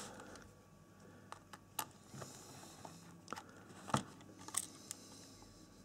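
Small screwdriver loosening laptop mainboard screws: a few faint, scattered clicks and small scrapes of the tip on the screw heads, the sharpest about four seconds in.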